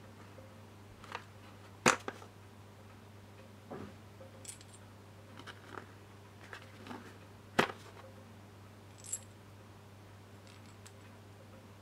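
Metal parts of an A/C compressor clutch holding tool clicking and knocking as the plate is handled and turned in the hands: scattered light clicks, with two sharper knocks about two seconds in and again near eight seconds in, over a steady low hum.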